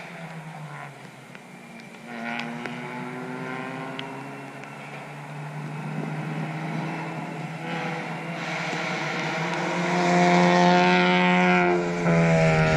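Four-cylinder club race cars running around a wet circuit, their engine note growing louder as one car approaches over the second half, with a hiss of tyres on the wet track. Near the end its engine pitch dips and then climbs again.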